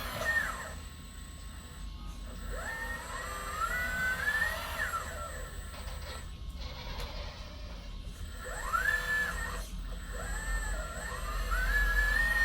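1/8-scale RC model excavator's electric motors whining in several spurts, the pitch rising and falling as the machine is worked, with short pauses between movements.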